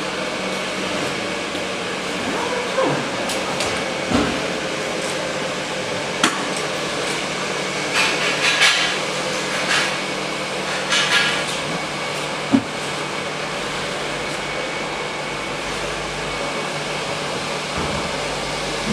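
Steady whooshing hum of an electric air blower keeping inflatable decorations inflated. A few sharp knocks and two short clattering bursts come about halfway through.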